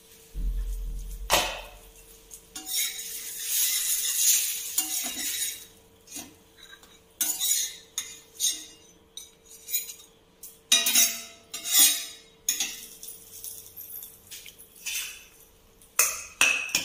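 Metal spatula scraping and knocking on an iron tawa as an uttapam is lifted off the griddle, with clinks of a glass pan lid and other cookware. There are short scrapes and clinks throughout, and one longer rasping stretch about three seconds in.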